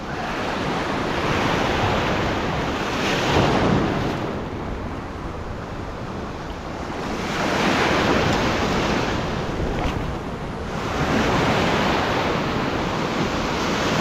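Ocean surf breaking and rushing in, swelling and easing every few seconds, with wind buffeting the microphone.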